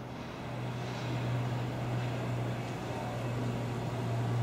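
Class 47 diesel locomotive approaching under power: its Sulzer V12 engine is a steady low drone, growing gradually louder as it nears.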